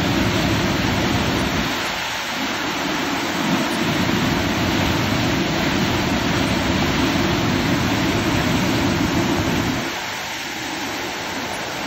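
Swollen floodwater rushing and churning over a weir, a steady loud rush of water that eases about ten seconds in.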